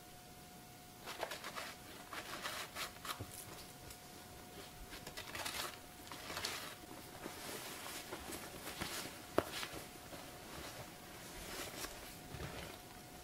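Rustling and light scraping in short, irregular strokes as hands and a nylon jacket work at a bowl, with one sharp click about nine seconds in.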